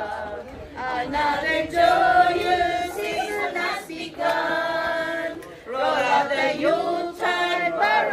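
A group of men and women singing together from lyric sheets, an amateur group choir, in phrases of held notes with two short breaks for breath.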